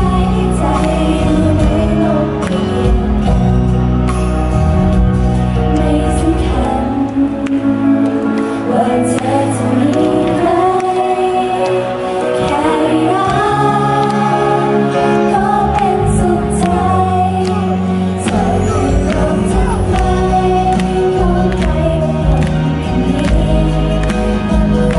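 A girl idol group sings a pop song together into handheld microphones over backing music on the stage speakers, heard through a fan's camera microphone in the crowd. The bass drops away for several seconds in the middle and comes back strongly about three-quarters of the way through.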